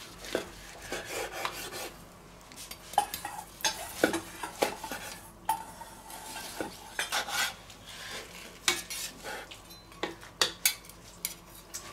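Large knife carving slices off a pork roast held with a carving fork on a wooden cutting board: a run of irregular sharp taps and clicks as the blade hits the board and the metal knife and fork clink together.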